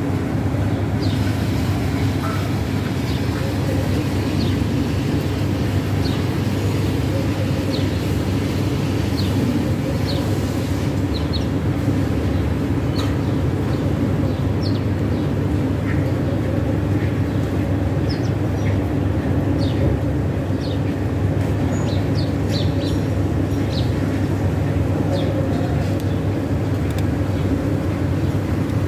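A steady low mechanical hum, unchanging throughout, with faint short high-pitched ticks scattered over it.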